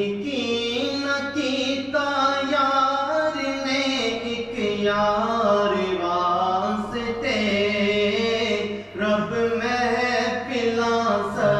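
Male voice chanting the durood (salawat on the Prophet) as a slow, ornamented melody of long held notes, with a short break about nine seconds in.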